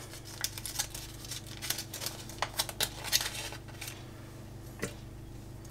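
Gold foil wrapper of a fresh yeast cube crinkling as it is peeled off by hand: scattered crackles and clicks for about three seconds, then one more click near the end. A faint steady low hum sits underneath.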